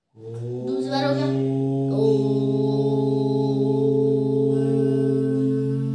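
A man and a boy chanting one long 'Om' together, held steady on a single low note for nearly six seconds, the vowel changing in its first two seconds before settling into a hum.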